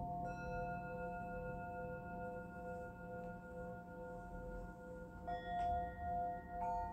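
Singing bowls ringing in long, overlapping tones that waver slowly. Fresh strikes come near the start, about five seconds in and near the end.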